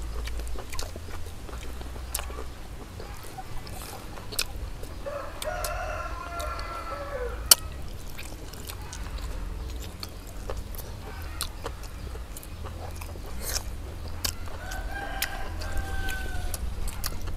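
A rooster crowing twice, long held calls about five seconds in and again near the end, the first dropping in pitch as it ends. Scattered sharp clicks sound throughout, one much louder than the rest right as the first crow ends.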